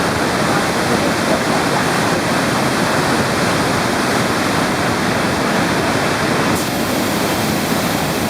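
Waterfall: a steady, loud rush of falling water close to the microphone, with a slight change in tone about six and a half seconds in.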